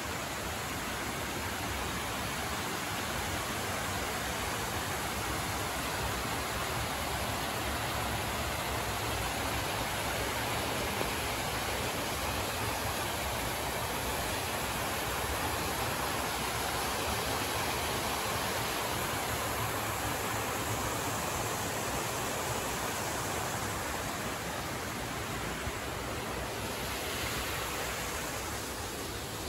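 Steady rush of water from a fast-flowing mountain stream, an even hiss with no breaks.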